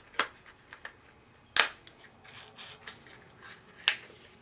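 Hands handling and opening a cosmetic product's packaging: soft rubbing with three sharp, short noises, about a quarter second in, about a second and a half in, and near the end.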